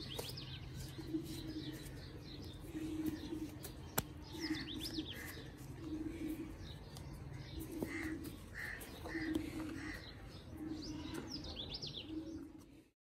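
Small birds chirping in quick clusters over a low note that repeats about once a second. The sound cuts off abruptly just before the end.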